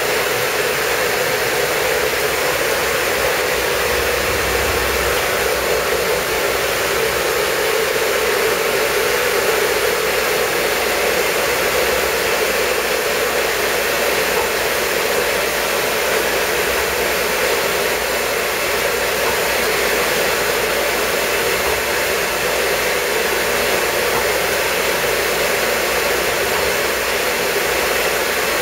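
Steady rushing-air noise with an even hum from a running semiconductor wet-bench cleaning machine, unchanging throughout.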